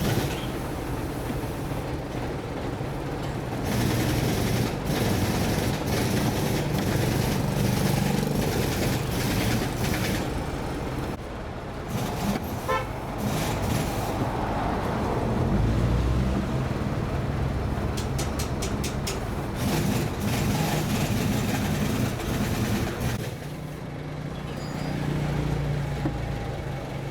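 Motor vehicle engines running, with a horn sounding.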